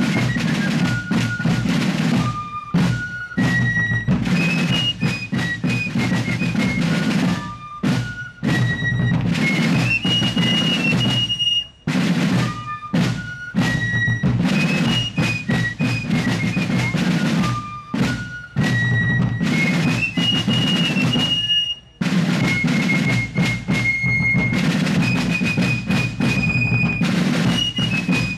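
Fife and drum corps playing a march: fifes carry a shrill tune in unison over snare drum rolls and bass drum beats. The loudness dips briefly about 12 and 22 seconds in as one strain ends and the next begins.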